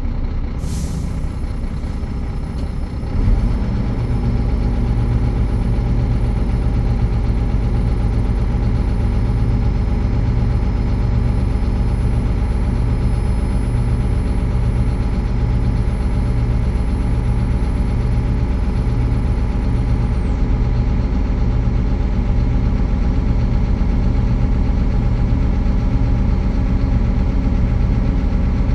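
Scania 114C's 11-litre straight-six diesel engine running steadily with the truck standing. Under a second in comes a brief hiss of air, and about three seconds in the engine note steps up and runs louder and steadier from then on.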